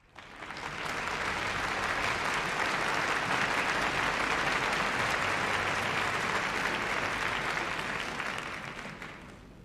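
Audience applauding. It swells up over the first second, holds steady, and dies away over the last second or so.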